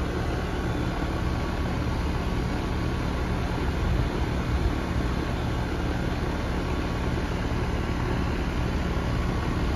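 Rheem heat pump's outdoor unit running in cooling: a steady low hum from the compressor under the even rush of the condenser fan.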